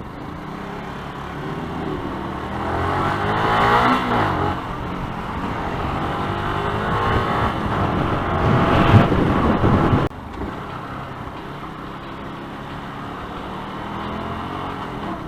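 Yamaha YZF-R125's single-cylinder 125cc engine pulling through the gears under acceleration, with wind noise over the rider's microphone. It climbs over the first few seconds, is loudest about nine seconds in, drops off suddenly at about ten seconds, then runs on more evenly.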